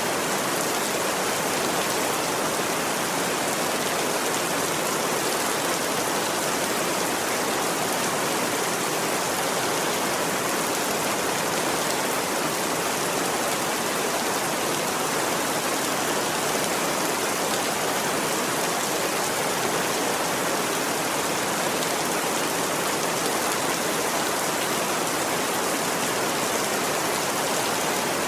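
Steady heavy rain, a constant even hiss of falling water.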